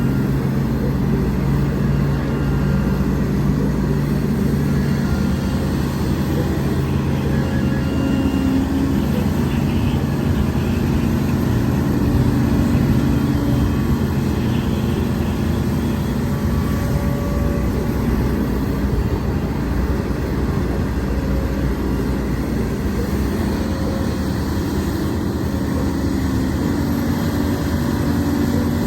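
Heavy diesel engines of a Hidromek HMK230LC excavator and an Isuzu Deca dump truck running steadily as the excavator loads the truck. The engine note shifts slightly in pitch now and then.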